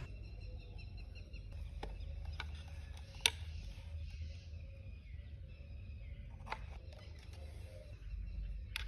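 A few sharp clicks and taps of small parts being handled on a wooden model excavator, the loudest about three seconds in, over a steady low background rumble.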